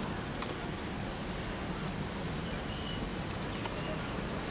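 Steady outdoor background hum and hiss, with a few faint, short, high chirps in the second half.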